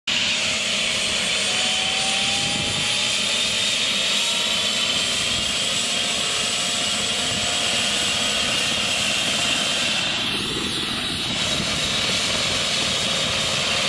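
Air ambulance helicopter running on the ground: a steady turbine whine, with thin tones drifting slowly in pitch, over the rushing noise of the turning rotor.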